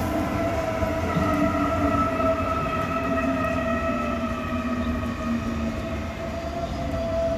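Red S-Bahn electric multiple unit running along the track as it moves away, its electric traction drive giving a steady whine of several tones over a low rumble of wheels on rails. The lowest tone sinks slightly, and the sound eases off a little near the end.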